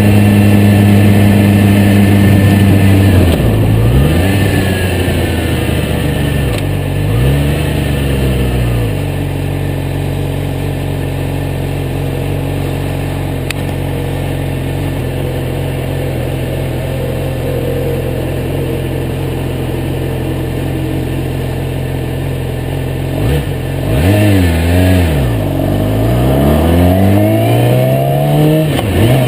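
Yamaha YZF-R6's inline-four engine running under way while being broken in, with heavy wind noise on a tank-mounted camera's microphone. The engine note swings down and back up a few seconds in and again about seven seconds in. It holds steady for a long stretch, then dips and climbs again near the end.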